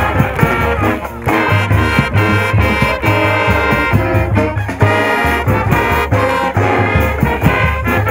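Brass band music with trombones and trumpets over a steady beat of drums and low brass.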